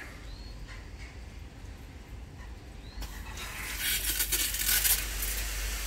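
Micro-sprinklers on a half-inch hose hissing as they spray a fine mist. The hiss starts suddenly about three seconds in, when the washing-machine solenoid valve, switched on remotely through a Sonoff relay, opens and lets mains water through.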